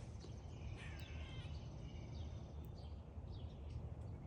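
Birds chirping faintly in short, scattered calls over a steady low rumble of background noise.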